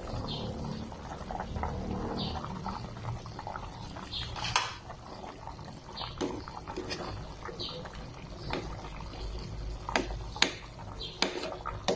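Metal spoon and ladle stirring simmering broth in an aluminium pot, with light sloshing and several sharp clinks of metal on the pot, most of them in the second half.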